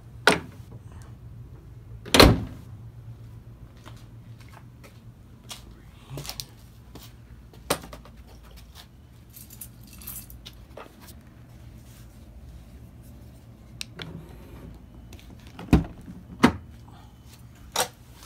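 BMW 128i's hood shut with a loud slam about two seconds in, after a lighter knock at the start. Scattered small clicks and rattles follow, then two sharp knocks near the end.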